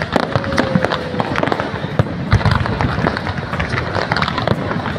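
Aerial fireworks display: a dense, continuous run of bangs and crackles from bursting shells.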